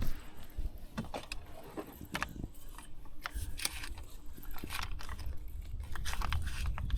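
Fishing reel clicking and rattling as a hooked fish is reeled in, with irregular sharp clicks of reel and tackle handling over a low rumble.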